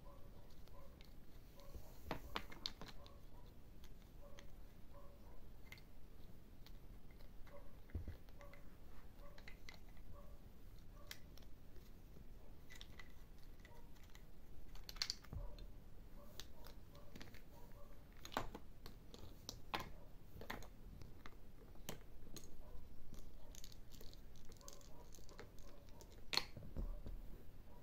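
Plastic parts of a toy truck construction kit being handled: scattered light clicks and taps at irregular intervals.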